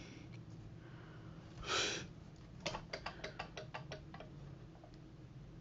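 Light clicking from fingers handling a thin glass sheet taken out of a laptop LCD panel: a quick run of about a dozen small clicks over a second and a half, after a short soft hiss.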